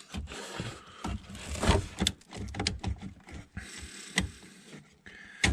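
Irregular plastic clicks, knocks and rustling as electrical connectors are unplugged and a car's wiring harness is handled, with a cluster of quick clicks in the middle.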